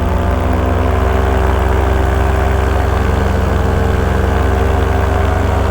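Paramotor's two-stroke engine and propeller running steadily at constant throttle in flight, holding an even pitch.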